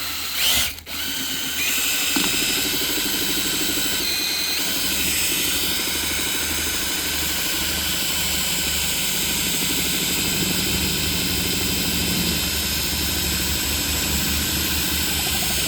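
Electric screwdriver spinning a paint-mixer paddle to stir a thick sound-deadening coating. It gives a short burst about half a second in, then runs steadily from about two seconds on.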